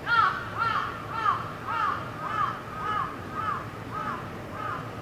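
A bird calling over and over, about two short arched calls a second, loudest at the start and growing fainter.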